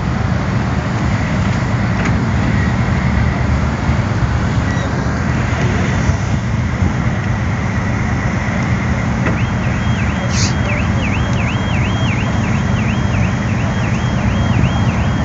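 Steady loud rushing noise over a deep rumble: a fire truck's engine running its pump while firefighters hose down a burning car. From about nine seconds in, a high electronic warble flips quickly between two pitches, about two cycles a second.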